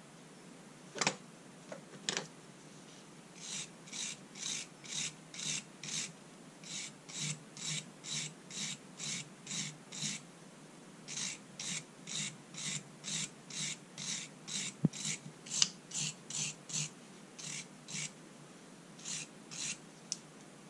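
Hand rubbing a steel part of an old spring balance with an abrasive: steady back-and-forth rasping strokes, about two a second. Two sharp metal clicks come just before, as the parts are handled.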